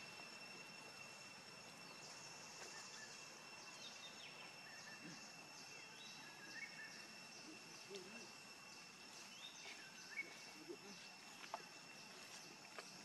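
Near silence: faint outdoor ambience with a steady, thin high whine, a few faint chirps, and a few soft clicks about ten seconds in.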